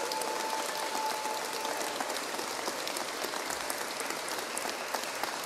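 Crowd applauding steadily, a dense patter of many hands clapping, with a voice calling out over it in the first couple of seconds.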